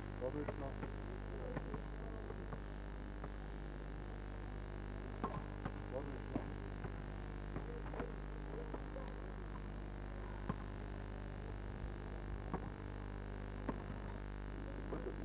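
Steady electrical mains hum, a low buzz with even overtones, with a few faint scattered knocks.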